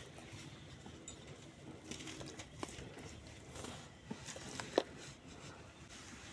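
Lumps of grainy cement sand being crushed and crumbling, with scattered soft crunches and pattering grains and one sharper crunch near the end.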